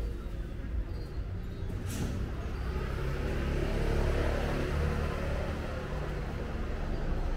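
A motor vehicle passing close by on the street, swelling to its loudest about four seconds in and then fading, over a steady low traffic rumble.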